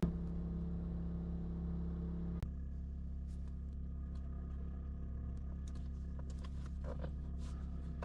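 Steady low machine hum. A higher tone within it cuts off with a click about two and a half seconds in, followed by scattered faint clicks.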